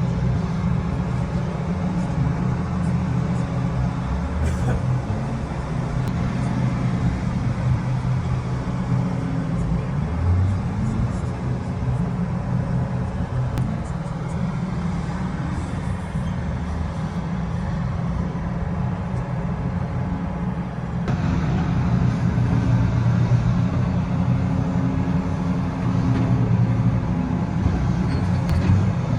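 Tugboat's diesel engine running steadily: a low rumble with a constant hum. About two-thirds of the way through the sound changes abruptly and gets slightly louder.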